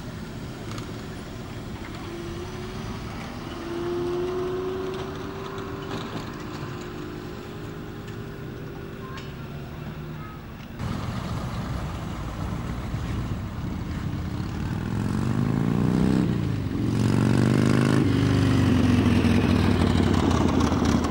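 Engines of 1950s American sedans running as the cars drive slowly past. About halfway through the sound changes abruptly to a louder engine whose pitch rises, dips sharply for a moment, then rises again.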